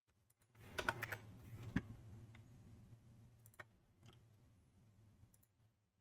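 Computer keyboard and mouse clicks: a quick run of keystrokes about a second in, then scattered single clicks, over a faint low hum.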